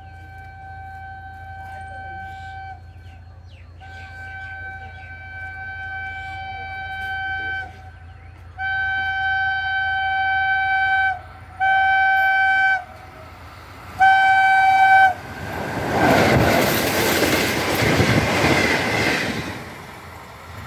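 Locomotive horn sounding five blasts, each louder as the train approaches: three long ones, then two short ones. Then the train rushes past at high speed with a loud wash of wheel and wind noise that fades away near the end.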